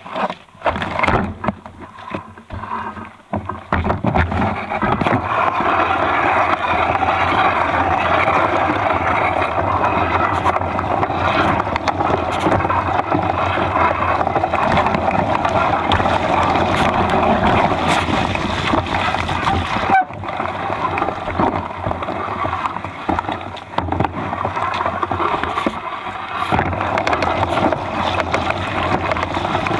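Mountain bike rolling down a wet, muddy trail: the knobby tyres hissing and splashing on the wet ground and the frame knocking and rattling over the bumps, picked up by a camera mounted on the frame. A few separate knocks as it sets off, then steady riding noise from about four seconds in.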